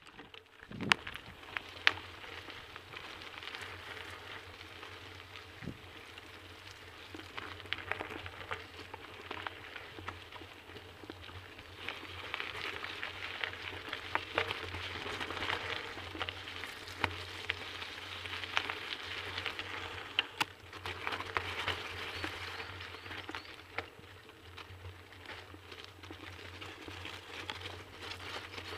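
Bicycle tyres crackling over gravel and wet, muddy track, with frequent small clicks and knocks from the ride and a steady low hum underneath. Two sharp knocks come in the first two seconds, and the crackle grows louder over the middle stretch.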